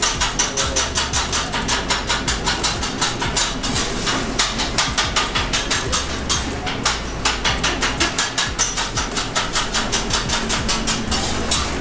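Background music with a fast, steady percussive beat of about four hits a second over a bass line that changes every second or two.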